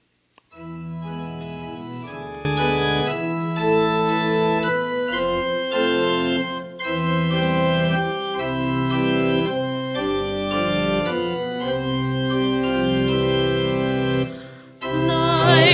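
Organ playing sustained chords as the introduction to a sung Advent candle-lighting verse; it enters softly and grows fuller a couple of seconds in.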